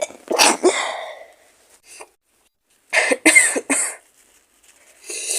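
A woman with a cold coughing in short fits: a fit of coughs at the start, three quick coughs about three seconds in, and one more near the end.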